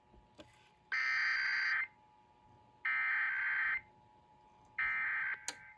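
Emergency Alert System SAME header tones: three short, loud bursts of buzzing digital data tone, each just under a second long with about a second between them, the third cut a little shorter. They encode the start of an EAS test message.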